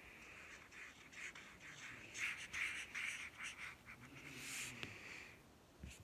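Felt-tip marker tip scraping across paper in a run of short, quick strokes.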